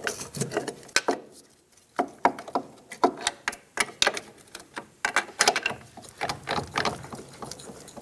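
Irregular metal knocks and clanks, a few a second, with a short pause about a second in, as a rust-seized steering knuckle is worked loose from the front strut by hand and with a pry bar.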